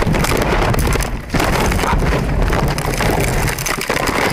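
Loud, continuous rumbling and clattering inside a car's cabin as the car is violently jolted, likely in a crash, with a phone tumbling about. The noise dips briefly about a second in.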